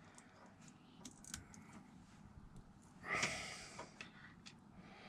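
Small plastic Lego pieces clicking and tapping as they are handled and pressed together, with a brief louder rustle about three seconds in.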